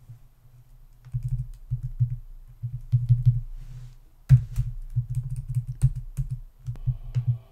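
Typing on a computer keyboard: a run of irregular key clicks, each with a dull low thud, starting about a second in.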